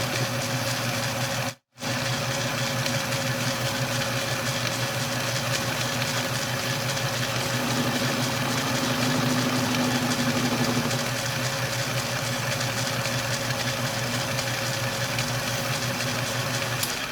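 Atlas 10-D metal lathe running steadily with a constant hum while its milling attachment takes a cut across a square bolt head. The sound cuts out for a split second about two seconds in and stops right at the end.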